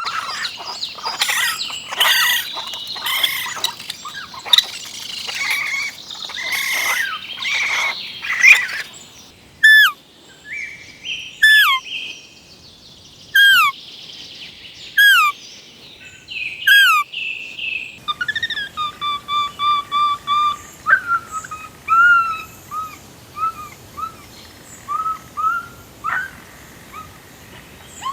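Birds calling in several spells, one after another. First comes a busy chatter of many chirps. Then a single hooked call repeats about every second and a half, and near the end come quick runs of short, evenly spaced notes.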